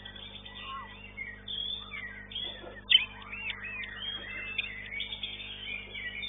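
White-rumped shama (murai batu) singing a rapid, varied song of whistles, chirps and sliding notes. A single sharp click about three seconds in.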